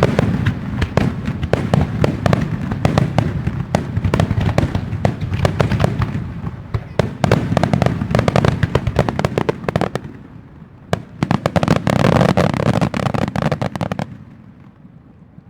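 Fireworks barrage: many aerial shells bursting in quick succession with sharp cracks over a continuous low rumble. There is a short lull about ten seconds in, then another dense flurry that cuts off suddenly near the end.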